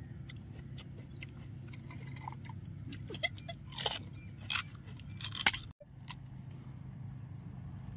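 Pani puri being eaten: scattered short crunches and chewing of the crisp puri shells over a steady low background hum, the sound dropping out for an instant a little before six seconds in.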